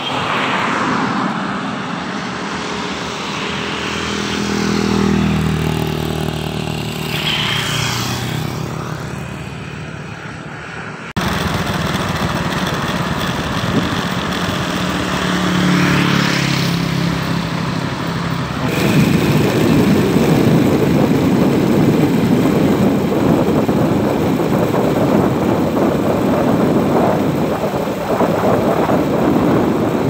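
Motor vehicles passing on a road, their engine note climbing and then dropping in pitch as each goes by; a second one passes about halfway through. From about two-thirds of the way in, a steady rush of engine, tyre and wind noise takes over as the camera moves along the road.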